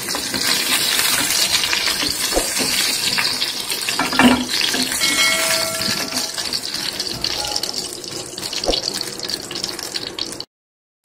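Hot mustard oil sizzling in a frying pan as fried fish pieces are lifted out with a wooden spatula, with a few knocks of the spatula against the pan. The sound cuts off suddenly near the end.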